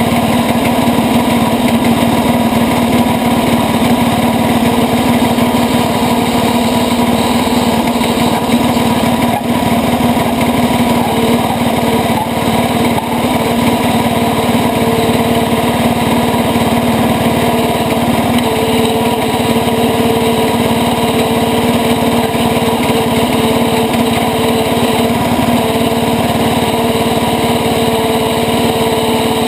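International Cub Cadet 80 garden tractor's single-cylinder Kohler engine running steadily under load as the tractor drives along a dirt trail, heard up close. The hum holds an even pitch throughout.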